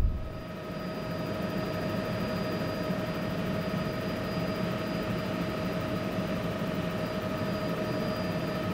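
Steady drone of a light aircraft in flight, heard inside the cabin, with a steady whine over the engine noise.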